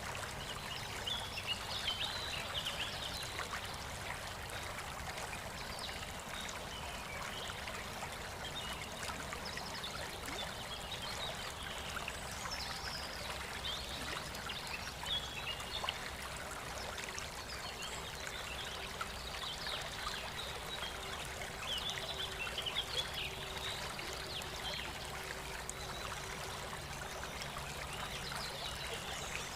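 A stream trickling and flowing steadily, with small birds chirping in short bursts now and then.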